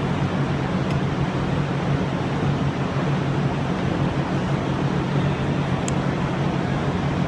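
Steady machinery hum and rushing background noise of a workshop, even throughout, with a couple of faint light clicks, one about a second in and one near six seconds.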